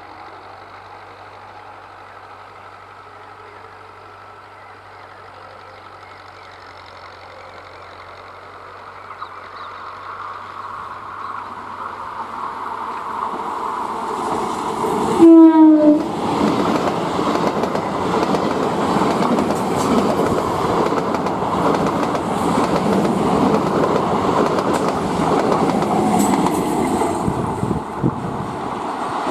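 Electric multiple-unit (EMU) local train approaching and passing close by, its running noise building steadily. About halfway through it sounds a short horn blast, the loudest sound, and then the carriages rush past with a loud, steady rumble.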